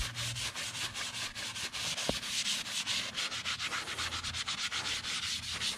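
Scotch-Brite scouring pad scrubbed back and forth over the wet, soapy frame of a Yamaha dirt bike, a steady run of quick, rhythmic rasping strokes.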